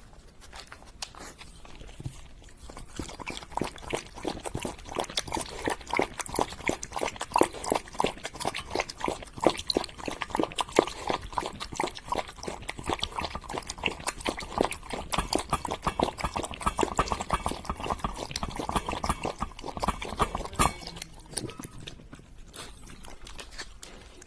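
Eating sounds: a fast run of wet smacking or lapping clicks, many a second. They begin about two seconds in and stop fairly suddenly a few seconds before the end.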